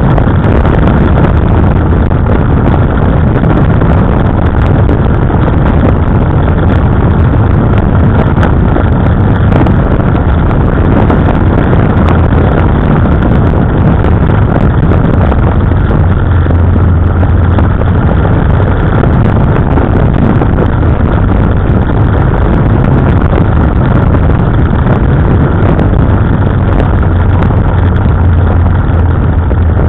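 KTM 990 Adventure's V-twin engine running steadily as the bike rides along, heard loud and close from a camera mounted on the motorcycle.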